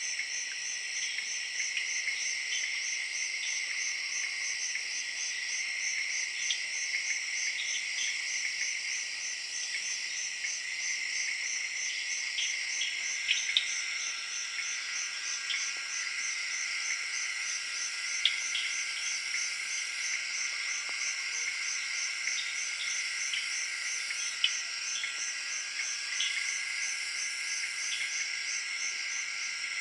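Evening jungle chorus of crickets and tree frogs. A fast, even pulsing trill sits high above a steady, lower continuous drone, with scattered short chirps and a few louder clicks. A second, lower drone joins about halfway through.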